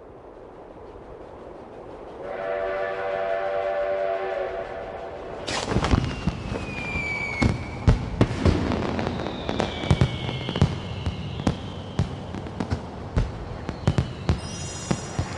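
A rush of air swelling up, then a steam train whistle sounding a chord for about three seconds. A string of fireworks follows: sharp bursts and pops, with whistling rockets sliding down in pitch between them.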